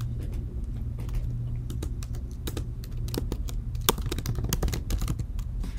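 Typing on a computer keyboard: a run of irregular key clicks over a low, steady hum.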